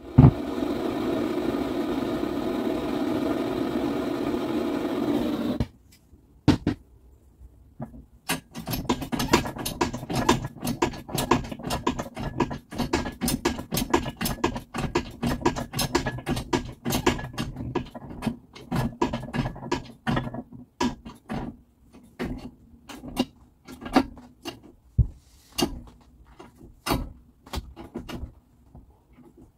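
A machine runs steadily for about five seconds and then stops abruptly. After a pause comes a long run of rapid, irregular clicks and knocks over a faint steady hum, thinning out toward the end.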